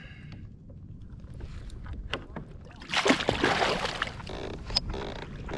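Water sloshing and small knocks around a fishing kayak, with a louder splash about three seconds in.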